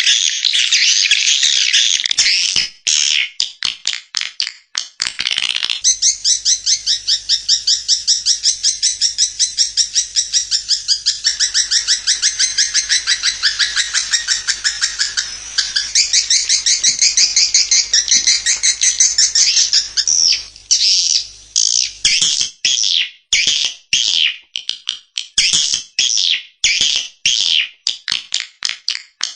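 Swiftlet call lure track: high, chittering swiftlet twitters, dense at first, then a long run of fast, evenly repeated chirps, then separate chirps about twice a second near the end. This is the calling sound played at a swiftlet house to attract a colony.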